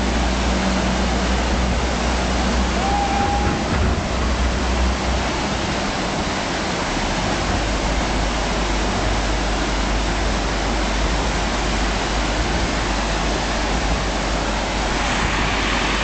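Whitewater river rapids: fast water rushing and breaking over rocks in a steady, loud wash of noise.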